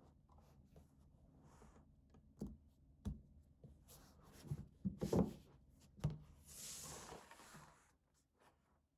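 Objects and packaging being handled by hand: a handful of light knocks and taps, the loudest a little past halfway, then a rustling slide of paper or packaging lasting about a second.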